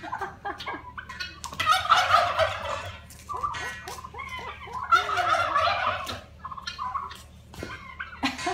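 Domestic turkeys gobbling: two loud gobbles, one about two seconds in and another about five seconds in.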